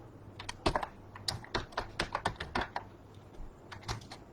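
Computer keyboard keys being tapped in an irregular run of clicks, most of them in the first three seconds, with a few more near the end.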